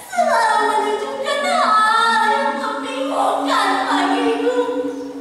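Unaccompanied singing in slow, long held notes: a woman's voice sliding between pitches over a steady lower note.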